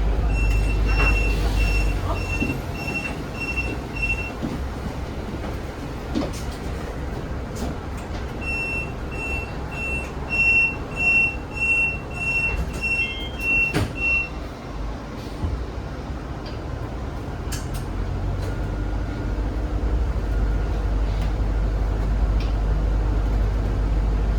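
Low steady running of a hybrid bus, with two runs of high electronic warning beeps at about two a second: one for about four seconds at the start, a louder one for about six seconds in the middle.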